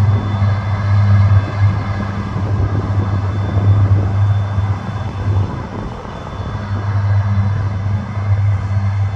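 Krone BiG M 450 self-propelled mower running steadily while mowing, a loud low engine hum with mechanical noise above it; the hum drops away for a second or so about halfway through, then comes back.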